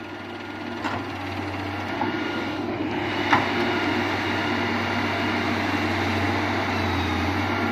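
Diesel engine of earthmoving machinery running steadily, growing louder over the first few seconds, with a few sharp knocks.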